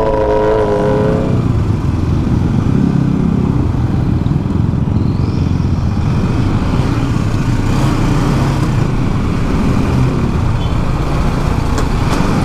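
Single-cylinder engine of a BMW G310 GS motorcycle running at low speed, a steady low rumble heard from the rider's helmet. A short wavering higher tone sounds in the first second or so.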